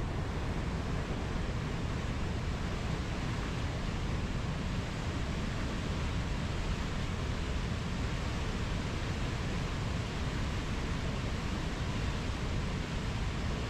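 Steady, continuous rush of sea waves, with no single breaker standing out.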